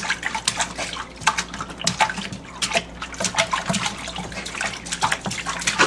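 A baby splashing bathwater with his hands in a plastic infant tub: a quick, irregular run of slaps and splashes.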